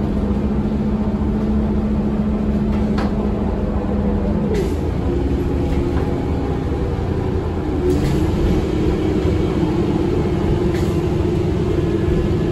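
Interior of a 2022 Eldorado National Axess BRT transit bus under way: a steady engine and drivetrain drone whose pitch changes about four and a half seconds in and steps up again near eight seconds, with a few light rattles.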